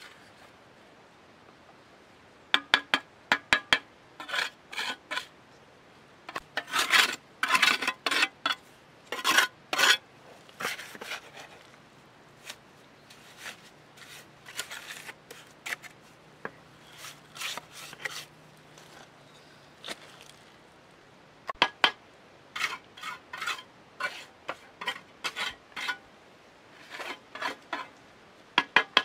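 Steel bricklaying trowel scraping and scooping wet cement mortar and tapping red bricks into place, in clusters of quick scrapes and taps with short pauses between.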